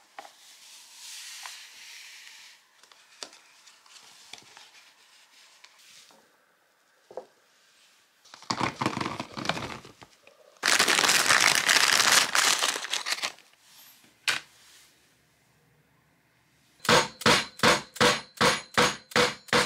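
A collapsible silicone pot and its clear lid being handled, with scattered light knocks and clinks and two longer bursts of crinkling, rushing noise. Near the end comes a quick run of about ten even pulses, three a second.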